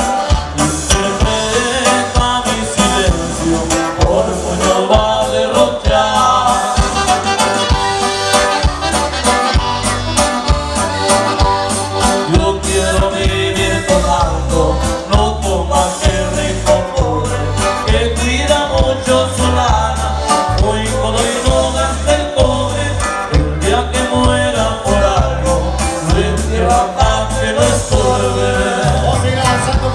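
Live norteño band music: accordion lead and a sung vocal over a steady, even bass beat.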